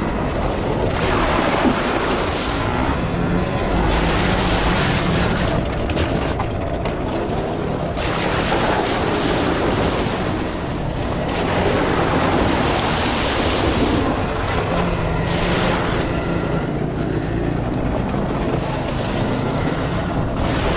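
Ride noise from a Volcon Grunt electric off-road motorcycle on a dirt forest trail: a steady rumble of tyres over the ground and wind on the microphone, with no engine note.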